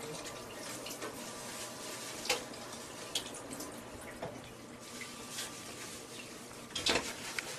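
Kitchen tap running into a sink while leafy vine stems are rinsed under it, a steady wash of water. A few sharp knocks or clatters against the sink, the loudest near the end.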